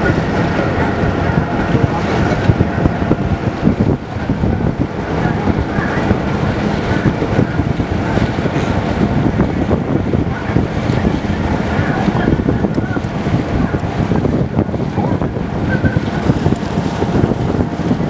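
Motorboat under way, its engine running steadily, with wind buffeting the microphone and water rushing along the hull.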